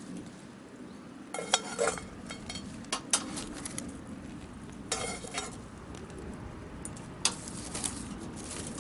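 Food sizzling in an iron pan, with a metal utensil scraping and clinking against the pan at irregular moments.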